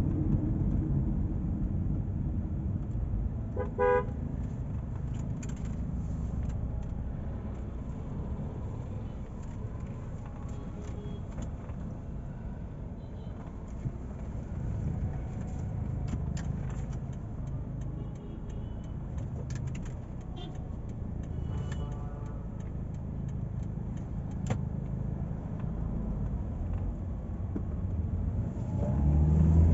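Steady low road and engine rumble heard inside a moving Toyota Allion sedan's cabin, with a short car-horn toot about four seconds in and a fainter horn later. The rumble grows louder near the end.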